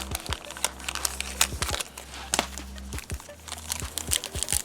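Foil trading-card pack wrapper crinkling and tearing as it is pulled open by hand, in a quick run of irregular sharp crackles.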